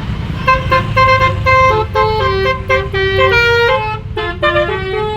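Basuri (telolet) musical horn playing a quick tune of short notes that step up and down in pitch, over a steady low engine rumble.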